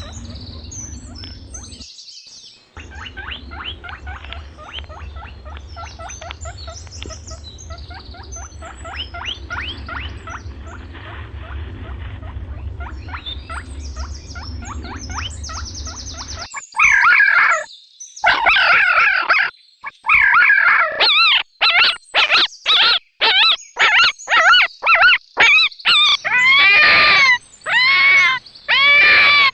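Animal calls. Many quick high chirps and squeaks over a steady low hum, then, from about two-thirds of the way in, loud short squealing calls that rise and fall in pitch, repeated again and again with abrupt breaks between them.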